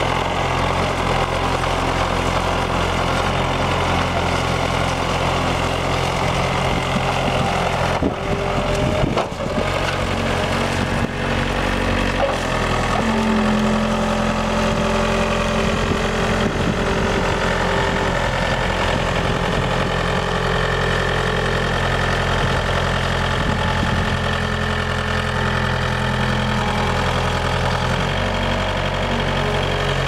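1986 John Deere 675 skid steer loader's engine running at a steady speed, with a brief break in the sound about eight seconds in. A steady higher tone joins the engine for several seconds in the middle.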